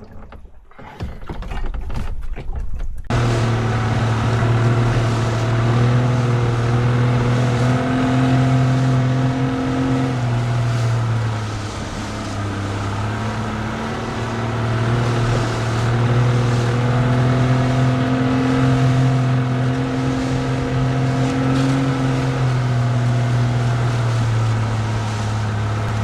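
Boat engine running steadily under way, its pitch dipping slightly and then rising again. Gusty wind noise on the microphone comes before the engine sets in, about three seconds in.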